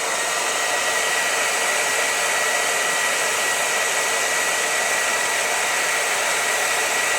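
Hand-held hair dryer running steadily: a loud rush of air with a thin, steady high whine. It is blowing hot air onto a fire-alarm heat detector to trip it.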